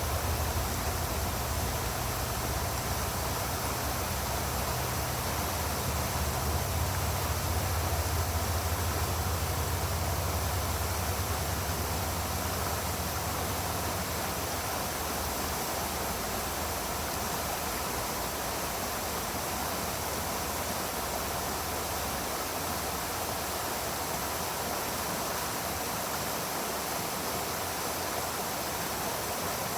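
A mountain brook babbling: a steady, even rush of running water. A fluttering low rumble sits under it for the first half and fades out about halfway through.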